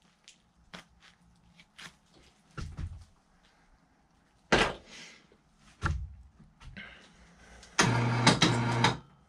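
Scattered clicks, knocks and rustles of a knife and hands at work cutting off a raccoon's front foot during skinning. Near the end a loud, steady buzzing hum lasts about a second.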